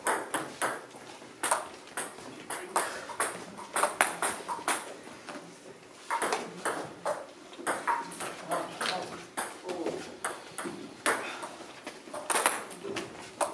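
Table tennis balls clicking off bats and tables: many short, sharp, irregular pings from rallies in play.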